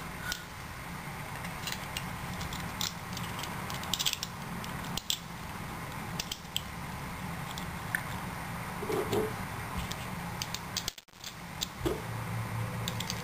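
Scattered small clicks and taps of plastic parts being handled and fitted together by hand, the casing and gears of a kit dynamo torch, over a steady background hiss.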